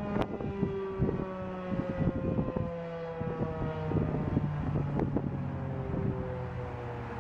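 Federal Signal 2001-SRN civil defense siren winding down at the end of a full alert test: its tone slowly falls in pitch and fades. Wind buffets the microphone throughout.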